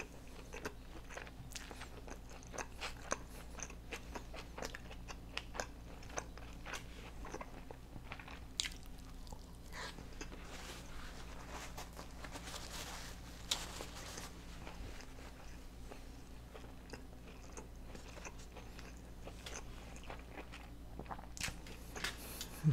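Close-miked chewing of a soft corn-tortilla street taco: scattered wet mouth clicks and smacks. Midway there is a denser rustle of a paper napkin being used, over a faint steady hum.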